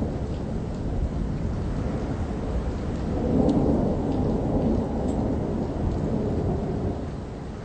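Thunderstorm: a low, steady rumble of thunder over rain, swelling about three seconds in and easing off near the end.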